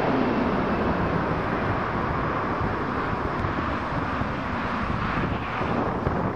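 Jet noise from a McDonnell Douglas MD-80's two rear-mounted turbofans on final approach, a steady noise fading slowly as the airliner flies away toward the runway, with wind on the microphone.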